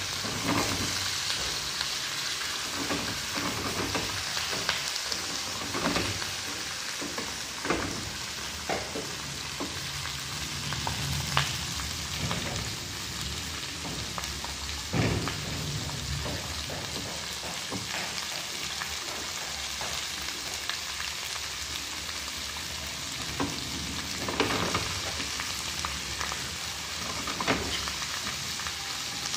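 Crab, pineapple and vegetables sizzling steadily in a wok over a gas flame, with a handful of sharp clicks of metal tongs against the pan.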